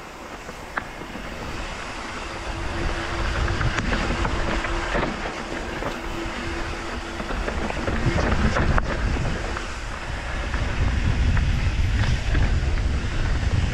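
Wind buffeting the microphone and tyres rumbling over dirt and rock as a mountain bike rides down a steep trail, with a few sharp knocks from bumps. The rush grows louder through the second half.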